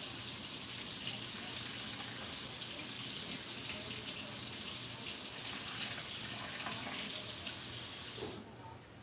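Kitchen faucet running water into a sink while mushrooms are rinsed under it, a steady hiss that is shut off suddenly near the end.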